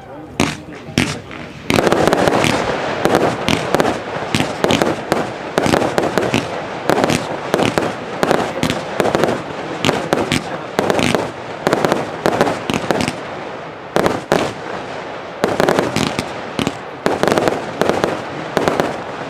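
Rubro 1.5 Minute Spectacle Box firework cake firing. A few single shots come first, then from about two seconds in a dense, rapid string of launches and aerial bursts, easing off near the end.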